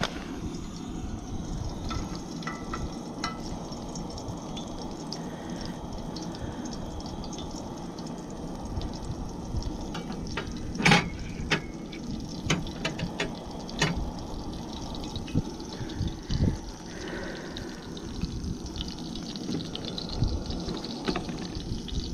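Pieces of yellow bullhead catfish frying in hot oil, a steady bubbling sizzle, with a few sharp clicks about 11 and 14 seconds in.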